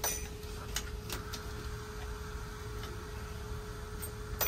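Light clicks of metal tweezers working a small capacitor off a laptop logic board, a few in the first second and a half and a sharper one near the end, over a steady workbench hum.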